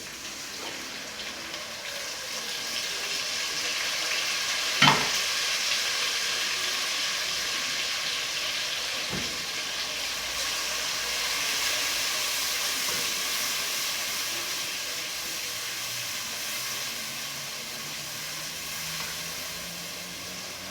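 Garlic, spices and crayfish frying in hot vegetable oil in a pot, with a steady sizzle. There is a single sharp knock about five seconds in.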